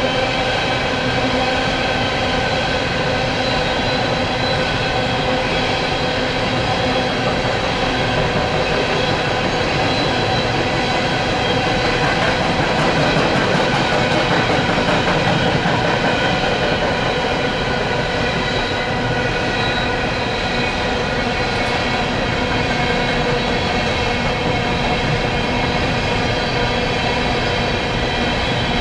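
Empty coal cars of a long freight train rolling past on steel rails: a steady rumble with a continuous metallic squeal of several held high tones.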